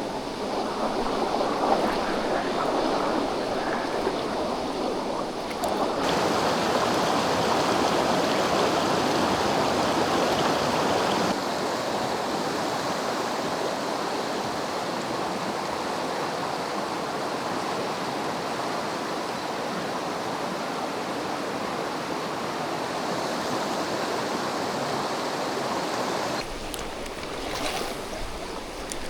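Mountain stream water rushing steadily, its loudness and tone shifting abruptly three times as the shots change.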